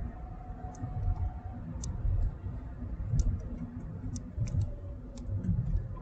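Irregular sharp clicks, about ten in six seconds, from a laptop's keys or mouse working a VCDS diagnostic session, over a low uneven rumble.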